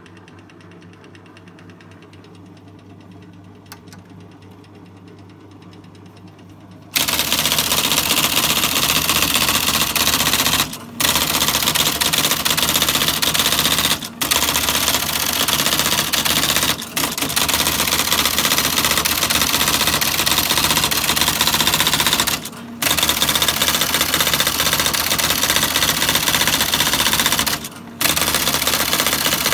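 IBM MC/72 Mag Card Selectric typewriter, its motor humming quietly for about seven seconds, then suddenly typing a fast, unbroken stream of strikes. The typing stops briefly four or five times, every three to five seconds.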